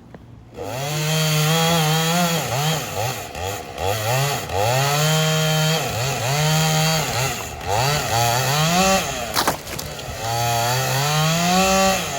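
Two-stroke chainsaw cutting through dead pecan wood, starting about half a second in. The throttle is opened and eased again and again, so the engine pitch climbs and dips as the chain bites, with a brief drop in revs a little after nine seconds.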